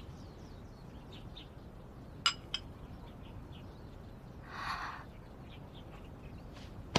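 A porcelain spoon clinks twice against a porcelain bowl, then a soft sip from the spoon, over faint bird chirps in the background.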